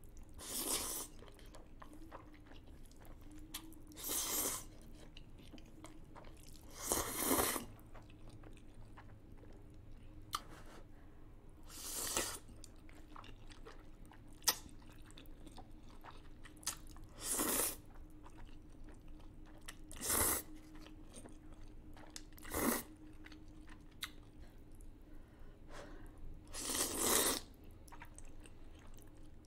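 A person eating spicy instant ramen noodles with chopsticks: about eight loud slurps of noodles a few seconds apart, with quiet wet chewing clicks between them.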